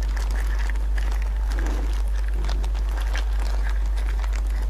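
Plastic-gloved hands pulling meat from a cooked goat's head, making faint, scattered wet clicks and crackles over a steady low hum.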